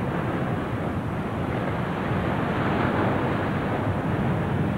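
Heavy sea waves breaking against an offshore rig and washing across its deck, with wind rumbling on the microphone; the rush of water swells about two seconds in.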